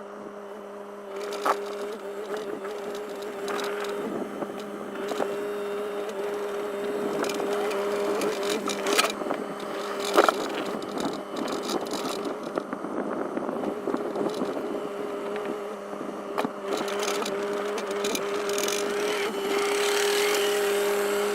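Bobcat compact excavator's engine running at a steady pitch, with occasional knocks and rattles as the machine rolls over a filled trench to pack the dirt down.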